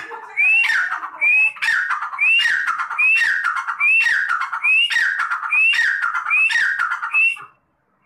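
A teetar (francolin) calling over and over, about ten loud calls spaced roughly 0.8 seconds apart. Each call is a sharp rising note that drops into a harsher falling phrase. The calling stops shortly before the end.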